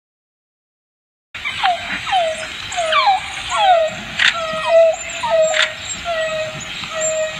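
African wild dogs (painted wolves) calling after about a second of silence: a run of short calls, each sliding down in pitch, one or two a second, with two sharp clicks midway.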